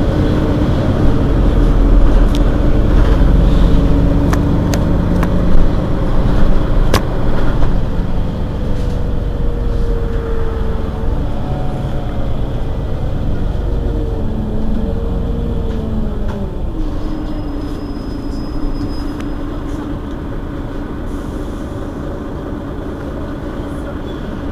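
Mercedes-Benz Citaro city bus engine running while the bus stands at a stop, a steady deep rumble that is loudest for the first several seconds and then eases off. In the middle, a few whining tones slide up and down over it.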